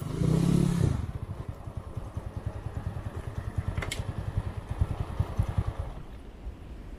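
Honda Win 100's single-cylinder four-stroke engine running, with a louder burst in the first second, then settling into a fast, even low pulsing that eases off near the end. A single sharp click about four seconds in.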